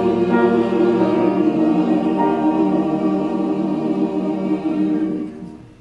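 Mixed church choir singing sustained chords; the singing dies away near the end as the piece finishes.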